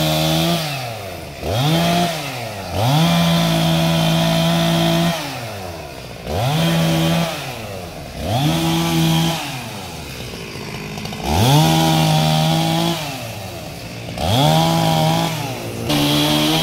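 Chainsaw revved in repeated bursts, about seven times, each climbing quickly to a steady high pitch, held for half a second to two seconds, then dropping back toward idle.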